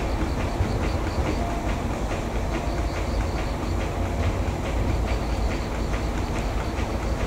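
Small railway shunting switcher running along the yard track: a steady low rumble with a faint, regular ticking, about three a second.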